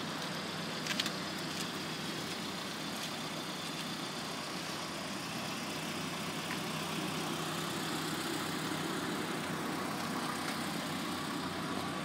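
Steady vehicle noise, an even rumble without pitch changes, with a couple of light clicks about a second in.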